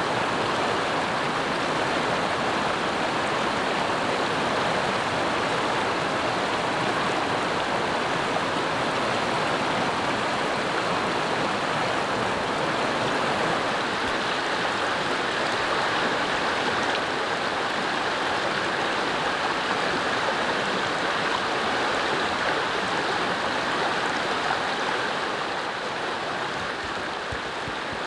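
A fast mountain stream rushing over rocks, a steady even rush of water that drops a little in level near the end.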